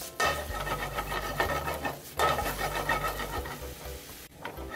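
Chopped napa cabbage searing in a dry frying pan, scraping and sizzling as it is tossed and stirred, with louder surges just after the start and again about two seconds in.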